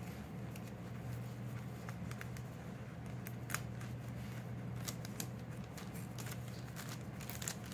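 Fingers handling and picking at the edge of a thin Bible page, giving small scattered paper clicks and crinkles that come more often in the second half, over a steady low hum.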